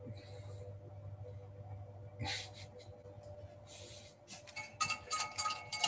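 Utensil stirring and knocking against a pot: one sharp clink a little over two seconds in, then a quick run of clinks with brief metallic ringing near the end. A steady low hum runs underneath.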